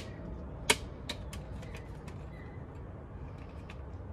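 Carbon fiber license plate frame snapping onto the plate. There is a sharp click at the start, a louder click under a second in, then a few lighter clicks. A low rumble of wind on the microphone runs underneath.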